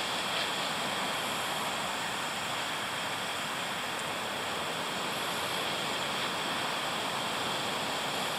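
Strong wind blowing steadily, an even rushing hiss with no single event standing out.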